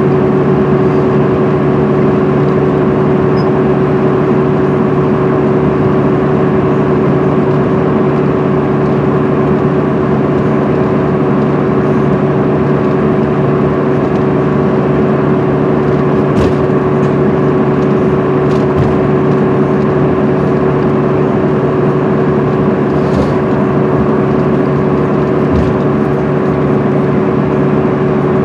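Cabin sound of a 2010 MCI D4500CL coach with a Cummins ISM diesel, cruising at highway speed: a steady drone with a constant low hum and road noise. A few brief knocks or rattles come through in the second half.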